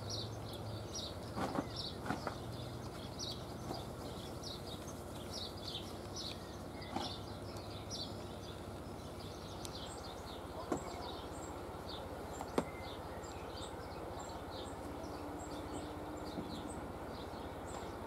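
Outdoor ambience: steady background noise under a continuous run of quick, high chirps, about two or three a second, with a few faint clicks.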